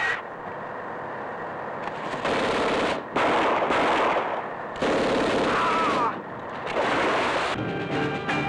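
Automatic gunfire in about four long bursts, each a fast run of shots. Music comes in near the end.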